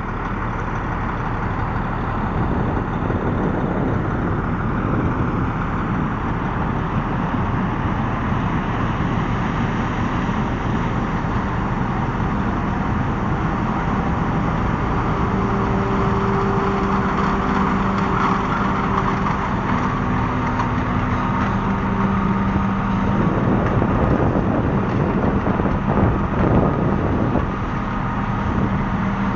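John Deere 9750 tracked combine running steadily while harvesting corn. A steady low hum joins the machinery noise about halfway through.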